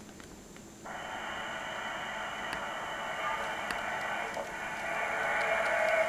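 Kato N-scale E233 series model train running on track: a whirring motor and wheels hum that cuts in about a second in and grows louder as the train draws near and passes, with a few faint clicks and a thin high whine above it.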